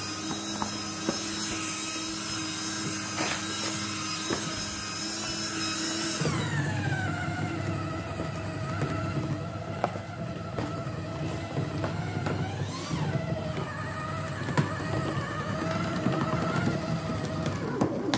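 Electric paper shredder motor running steadily while material is fed through it. Its pitch drops about six seconds in and stays lower to the end.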